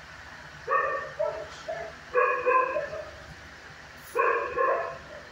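Dog barking in a run of short barks in several bursts, the loudest clusters about two and four seconds in.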